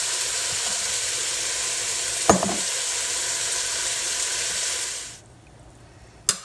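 Onions, Scotch bonnet pepper, Brussels sprouts and cauliflower frying in hot olive oil in a pot, a steady sizzle that stops abruptly about five seconds in. A single knock comes about two seconds in and a sharp click near the end.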